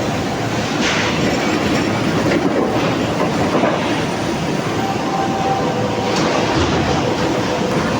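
Steady, loud clattering and rumbling of steel mill machinery as steel billets are conveyed and charged into a reheating furnace, with a faint steady whine underneath.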